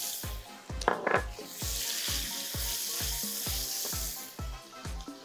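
Lamb and onion sizzling in a hot frying pan as a spatula stirs them, with a brief loud scrape about a second in. A steady low beat of background music runs underneath.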